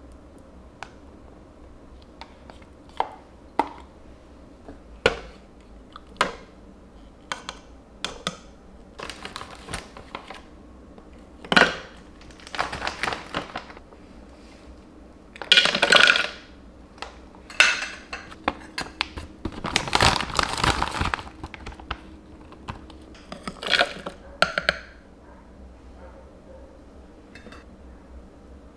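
Smoothie prep: a metal spoon scraping and clinking against a plastic tub and measuring cup, then frozen berries clattering into a plastic blender jar with a food bag rustling. It starts as a run of sharp clicks and grows into several louder clattering spells in the second half.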